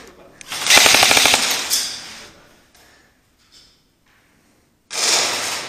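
Airsoft rifle firing a fast full-auto burst of rapid clicks, starting about half a second in and lasting about a second and a half. Another loud, sudden noise comes near the end.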